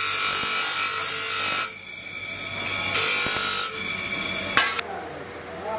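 Electric grinding wheel grinding a carbon-steel kukri blank: a loud grind for the first second and a half, the wheel running on alone, then a second short grind about three seconds in. A sharp click comes near the end.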